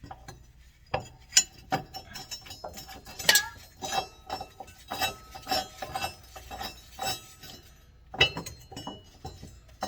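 Metal parts clinking and knocking as a mower cutting blade and its bolt and washer are handled and fitted by hand. The clinks come irregularly from about a second in, pause briefly, then return near the end.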